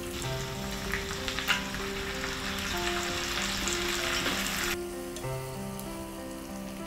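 Ginger-pork seasoning sauce poured into a hot frying pan of pork and onions, sizzling loudly, with a couple of sharp clicks early on. The sizzle drops abruptly to a softer hiss about five seconds in.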